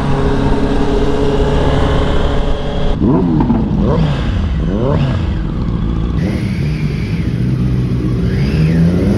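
Superbike engines on a group ride: a steady engine note for about three seconds, then the revs rising and falling several times in quick succession.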